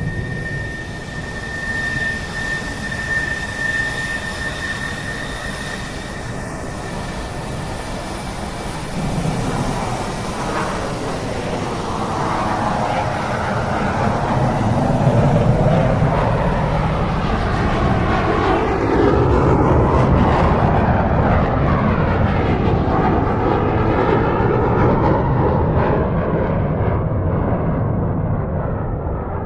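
Fixed-wing aircraft passing by: its engine noise builds through the first half and stays loud, while the high hiss dies away in the second half as the plane moves off.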